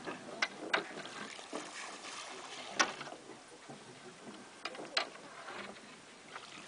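Ride on a river tour boat: a steady wash of water and wind, broken by five short sharp sounds, the loudest near the middle.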